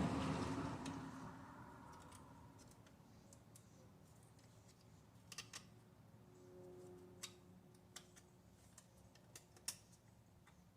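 Faint, scattered sharp clicks of small parts being handled during engine work, about half a dozen spread over the second half, after a louder noise dies away in the first two seconds.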